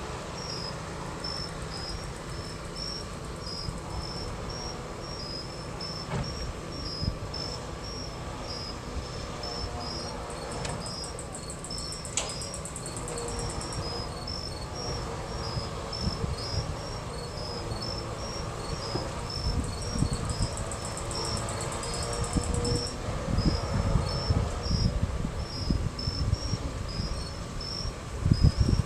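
Crickets chirping steadily, about two short chirps a second, with a higher, buzzier insect trill coming in twice. Underneath runs a low, irregular rumble with knocks, loudest near the end.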